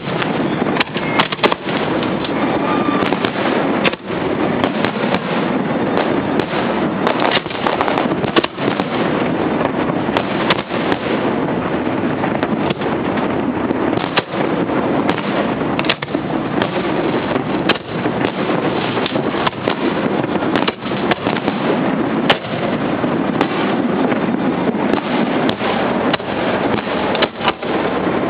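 Fireworks display heard from the launch barge: a continuous barrage of shells bursting, with frequent sharp bangs over a constant rushing noise.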